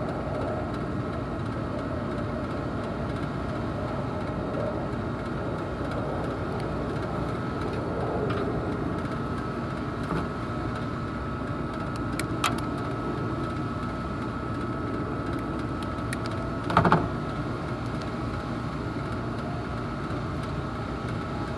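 Neighbouring rooftop package air-conditioning unit running steadily with a constant hum and a steady high tone: it has been running nonstop, and the tech expects it to be the next unit to fail. A few light metallic clicks come near the middle, and a short sharp clank about three quarters through.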